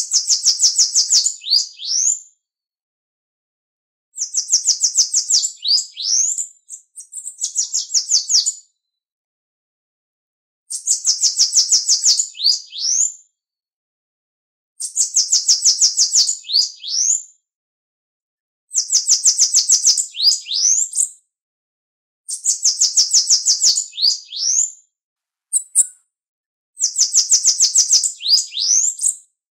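Bananaquit (Coereba flaveola) singing: high, rapid phrases of about two seconds, each a fast run of short notes ending in a few upward-sliding notes. The phrases repeat about every four seconds with silence between.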